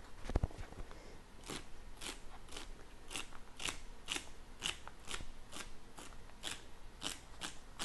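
French chef knife slicing through celery stalks onto a cutting board, a crisp crunch with each cut, about two cuts a second. A couple of sharp knocks about half a second in.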